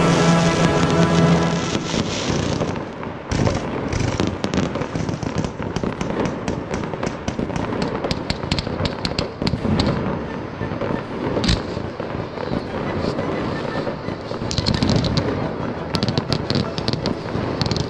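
A fireworks display: dense, irregular crackling and popping from fountains and shells, with one sharp bang about eleven and a half seconds in. Music fades out in the first two seconds.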